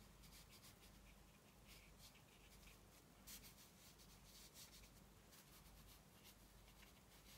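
Near silence, with faint, short scratchy strokes of a round watercolour brush dabbing paint onto textured watercolour paper, over a low steady hum.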